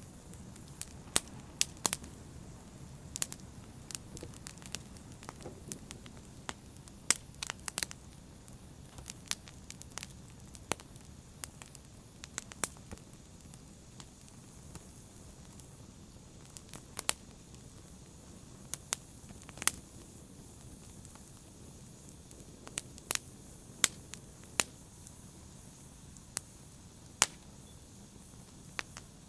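Wood fire burning in a fireplace: a low, steady hiss and rumble of flames with sharp, irregular crackles and pops, some coming in quick clusters.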